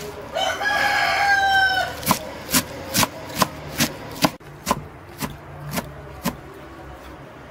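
A rooster crows once, a call of about a second and a half. Then comes a steady run of about ten sharp knocks, roughly two a second, from a knife chopping onions on a board.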